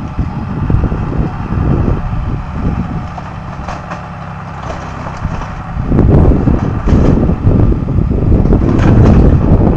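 A heavy vehicle's engine running as it pulls on a small wooden building to tear it down, getting louder and rougher about six seconds in.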